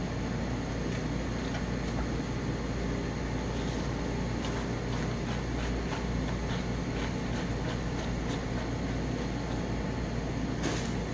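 Steady hum of kitchen ventilation, with faint small clicks and scrapes from a tool coring and seeding jalapeños by hand.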